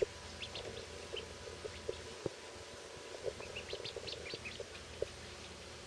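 Newly hatched Khaki Campbell and Swedish Blue ducklings peeping: many short, high chirps scattered and overlapping, from several birds at once.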